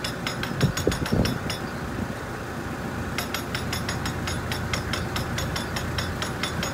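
Narrowboat diesel engine ticking over slowly, a steady low rumble with a fast, even ticking of about four or five a second. There are two brief louder knocks about a second in.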